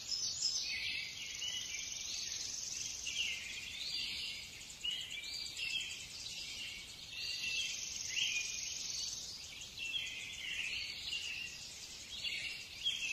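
Small birds chirping and twittering continuously, all high-pitched.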